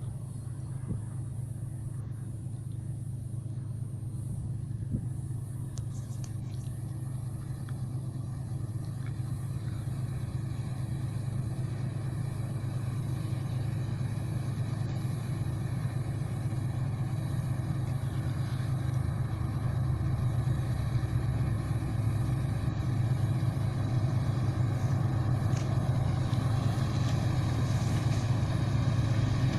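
Claas Lexion 450 combine harvester running steadily at work, a constant machine hum that grows gradually louder.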